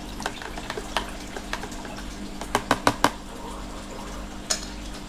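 A thin stick clicking against the sides of a plastic tub while stirring powder into water, with a few sharp clicks, a quick run of four around the middle and one more near the end. A steady low hum from the running aquarium pump sits under it.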